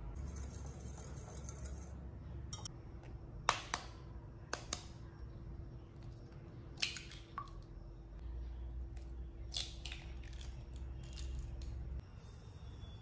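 Eggs tapped and cracked against a glass mixing bowl: a few separate sharp clicks, some with a brief glassy ring. A steady low hum runs underneath.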